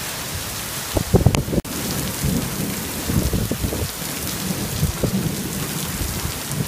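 Torrential monsoon downpour: heavy rain hissing steadily on the ground and pavement, with irregular low rumbles underneath.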